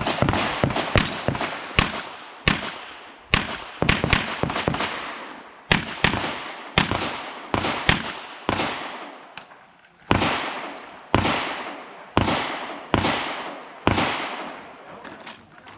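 Gunshots from a firearm during a practical shooting stage, fired in quick pairs and short strings with brief pauses between, each shot followed by a short echo. The pairs are the usual two shots per target.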